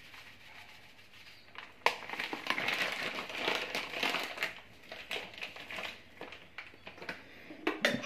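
Crinkling and crunching from dry canary egg-food ingredients and their packets being handled and mixed by hand. It starts with a sharp click about two seconds in, then a few seconds of irregular rustling with scattered clicks.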